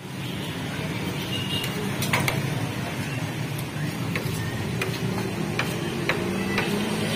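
Steady low rumble and hiss of a busy food stall, with several sharp clicks of a knife and utensils against a steel griddle as buns are sliced and laid out.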